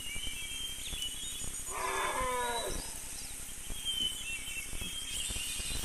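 A single animal bellow about two seconds in, falling in pitch over about a second, with short faint high bird chirps now and then over a steady background.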